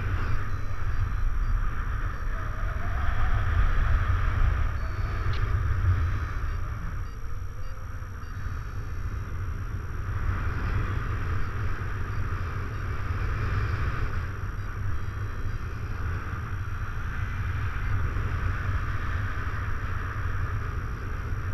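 Wind rushing over the camera microphone of a paraglider in flight: a steady low rumble with a hiss on top, swelling a little a few seconds in.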